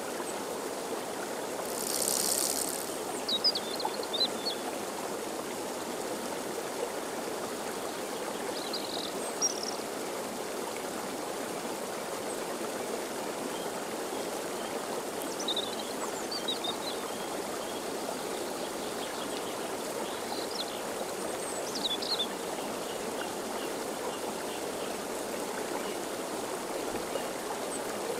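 Steady rushing noise, with short high bird chirps now and then and a brief hiss about two seconds in.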